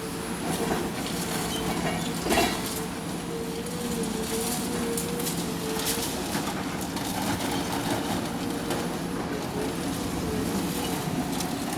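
Demolition machine running with a wavering mechanical whine, crushing and breaking up building rubble with scattered crunches and cracks, and a louder crash about two seconds in.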